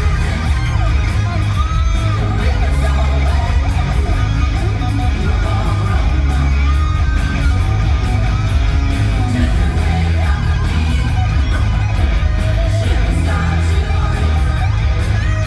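Loud live rock music with electric guitar, heavy bass and steady drum and cymbal hits.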